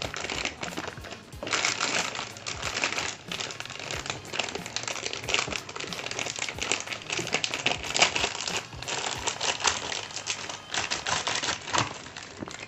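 Packaging wrap crinkling and rustling as it is pulled and torn off a boxed motorcycle body part, in irregular bursts that begin about a second and a half in.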